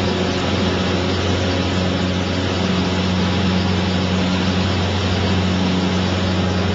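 Light aircraft's engine and propeller, heard from inside the cabin during the climb after takeoff: a steady, unchanging drone with a deep hum under a wide rush of air.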